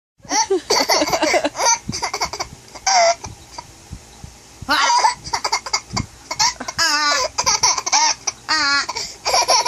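Baby laughing hard in repeated high-pitched bursts, with a quieter pause about three and a half seconds in; the laughter is brought on by her hiccups.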